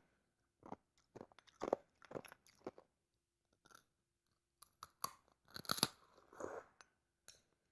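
Ice being bitten and chewed close to the microphone: a series of sharp, irregular crunches, loudest and densest about six seconds in.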